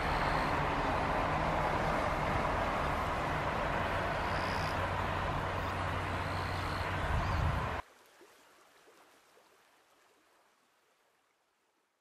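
Steady outdoor background noise with a low rumble, which cuts off abruptly about eight seconds in and leaves only a faint fading tail.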